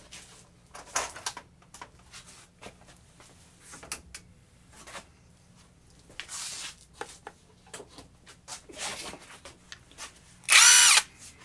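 Soft handling clicks and rustles, then near the end a brief loud run of a Tacklife 20-volt half-inch cordless impact wrench's motor, a short whine lasting under a second.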